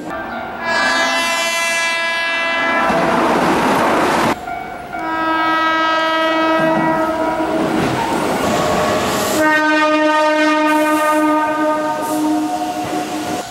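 Keihan electric train horns sounding three long blasts in a row, cut together one after another, over the rumble and rail clatter of moving trains. The first blast, about a second in, is the train's emergency horn.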